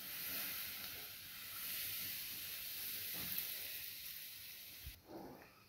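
Very hot oil poured onto a heap of flour in a steel plate, sizzling and hissing steadily as it soaks in, dying away about five seconds in.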